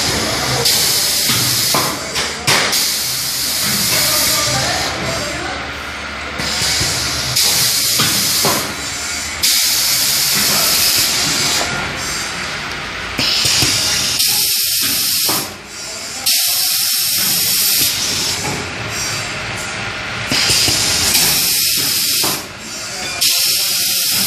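Fry-basket paper liner forming machine running, with a hiss of compressed air from its pneumatic system about every two seconds, each hiss lasting about a second, over steady mechanical running noise.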